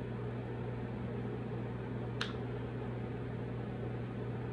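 A steady low hum, with one short sharp click about halfway through.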